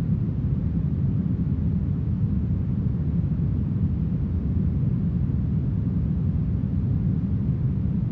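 Smoothed brown noise: a steady, deep, even hiss with its weight low down and little treble, unchanging throughout.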